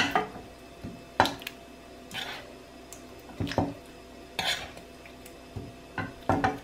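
Steel ladle clinking and scraping against a pot and a serving bowl as chicken curry is ladled from one to the other: a string of separate sharp clinks about a second apart, some with short scrapes.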